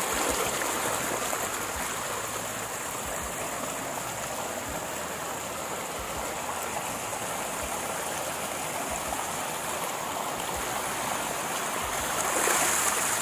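Muddy stormwater runoff from a heavy downpour rushing over the ground in a steady flow, growing louder near the end.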